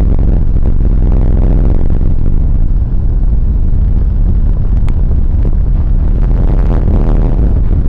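Loud, steady low rumbling drone from an experimental sound-art soundtrack, with a single sharp click about five seconds in.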